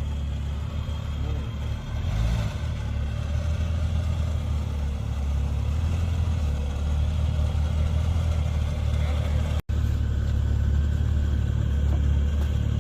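Off-road SUV's engine running at low revs while driving, with a steady low hum that rises and falls slightly with the throttle. About ten seconds in, the sound cuts out for an instant.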